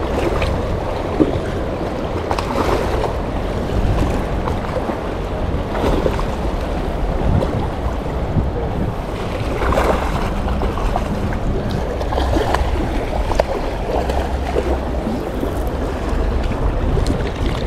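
Steady rush of river water, with wind buffeting the microphone and a few faint knocks.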